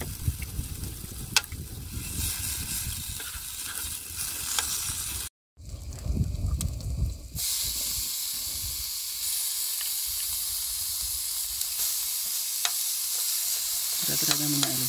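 Meat sizzling in an oiled non-stick griddle pan, a steady frying hiss, with a few sharp clicks of metal tongs on the pan. The sound cuts out for a moment about five seconds in.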